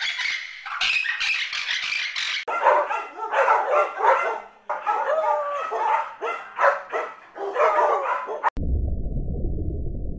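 A dog barking repeatedly, with some yelping, its pitch bending within each call. Before it come a couple of seconds of sun conures screeching. Near the end the sound cuts abruptly to a low, steady rumble.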